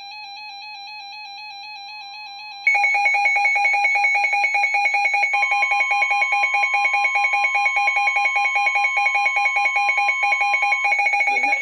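Weather radio emergency alert tone: a loud, rapidly pulsing electronic tone that cuts in about three seconds in and holds steady, signalling that a new warning is about to be broadcast. Before it, a quieter wavering electronic tune plays.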